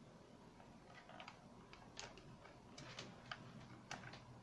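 Faint, irregular clicks and taps, a handful of them, from audio cables and plugs being handled and plugged into a small live sound card.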